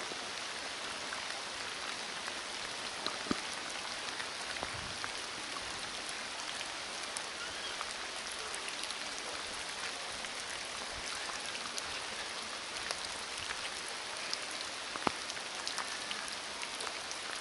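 Steady rain falling on a forest and its wet ground: an even hiss with scattered sharp drop ticks, one louder tick about fifteen seconds in.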